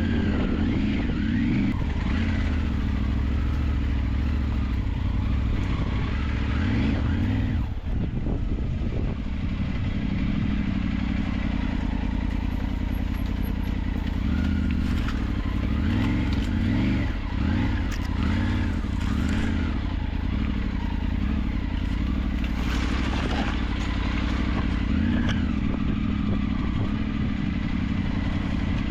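Vehicle engine running under load on an off-road track, its revs rising and falling again and again, steadily loud throughout.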